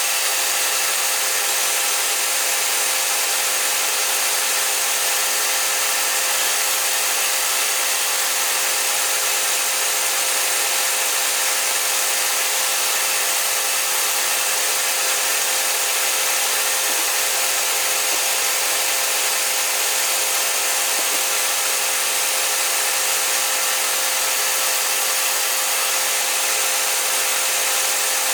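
Metal lathe running steadily, turning down a hammer handle, with a constant hiss of the cut over a steady machine hum.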